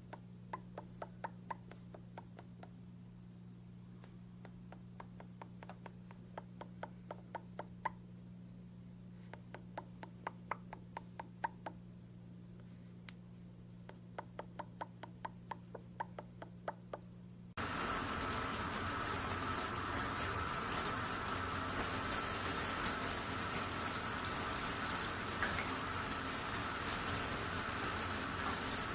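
Clusters of quick clicks or taps over a steady low hum. About two-thirds of the way through, this cuts suddenly to a louder, steady rushing noise.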